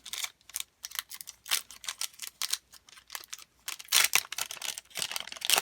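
Trading-card booster pack wrappers being handled: a quick run of crinkles and clicks, with a louder crinkling rush about four seconds in.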